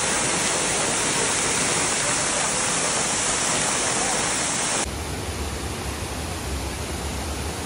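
Waterfall: a steady rush of falling water. About five seconds in it cuts abruptly to another take, where the rush is deeper, with more low rumble and less hiss.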